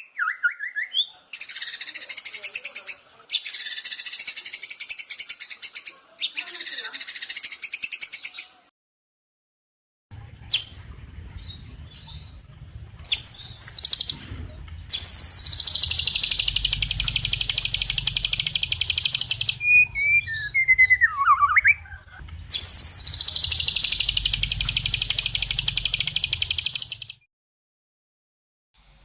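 Recorded songbird song: long, rapid, buzzing trills several seconds each, broken by short whistled notes, starting and stopping abruptly. A low hum lies under the middle of it.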